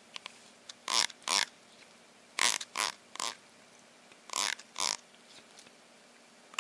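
Plastic comb teeth strummed with a fingernail: seven short rasps in twos and threes.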